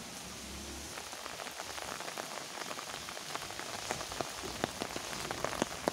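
Rain falling, a steady hiss with many separate drop ticks that come more often after the first second or so.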